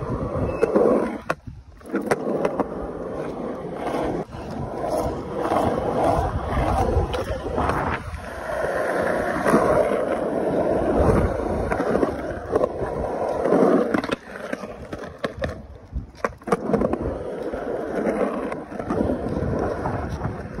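Skateboard wheels rolling over rough concrete in a steady rumble, broken several times by sharp clacks of the board, among them the board striking the metal coping of a bowl about three quarters of the way through.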